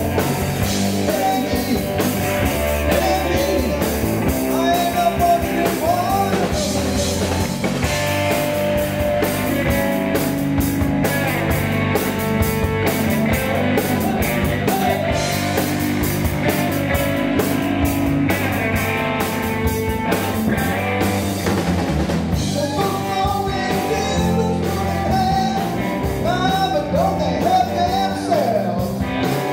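Live rock band playing: electric guitar over bass guitar and a drum kit, loud and continuous.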